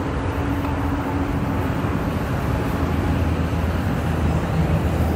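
Steady low rumble of a car running and rolling slowly, growing a little louder, with a faint steady hum in the first couple of seconds.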